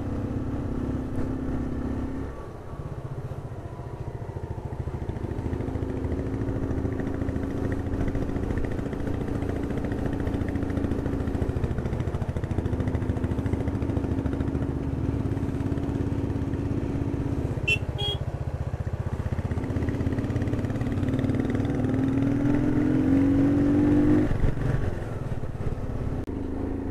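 Hero Glamour motorcycle's single-cylinder engine running under way on a hill road. Its note holds steady, drops away briefly a few times, and climbs in pitch near the end as the bike accelerates. A short click comes about two-thirds of the way through.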